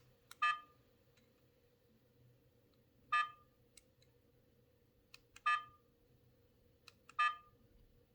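iZEEKER dual dash cam beeping as its buttons are pressed to change the date setting: four short, pitched beeps a few seconds apart, with faint button clicks between them.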